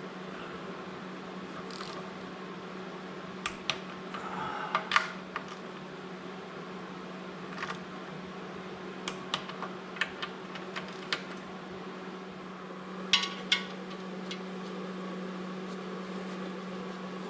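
Scattered metallic clicks and clinks of hand tools working on bolts under an engine, over a steady low hum of shop equipment.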